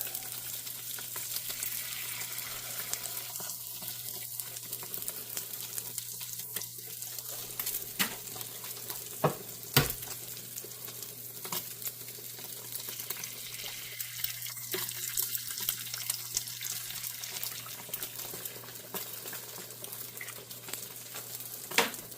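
Eggs, bread and Spam frying on a hot griddle: a steady crackling sizzle, with a low steady hum underneath. A few sharp knocks come about eight to ten seconds in and again near the end.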